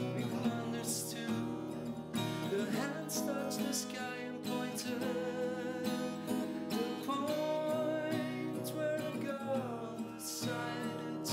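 Music led by a strummed acoustic guitar, with a gliding melody line above it.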